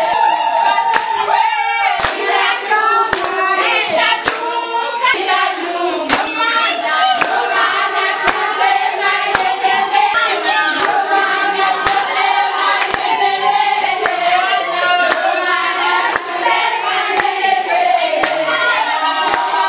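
A group of women singing together, with a steady rhythm of hand claps.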